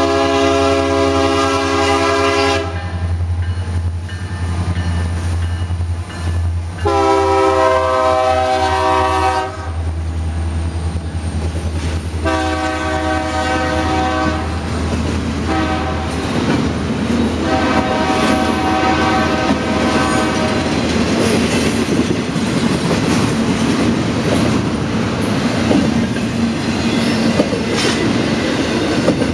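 Norfolk Southern diesel freight locomotives approach and pass, sounding a multi-chime air horn in five blasts, four long and one short near the middle of the sequence, over the low, steady rumble of the diesel engines. From about halfway, double-stack intermodal container cars roll past with the wheels clattering over the rails.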